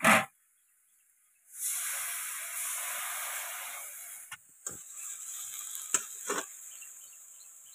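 Water poured into a hot kadai of frying leaves bursts into a loud sizzling hiss about a second and a half in, then slowly dies down to a softer simmer. A few short metal knocks, from the spatula or cup against the pan, follow.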